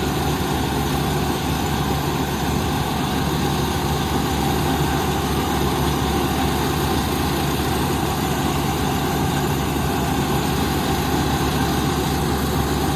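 Kubota combine harvester's diesel engine running steadily, with the even hum and clatter of the harvesting machinery.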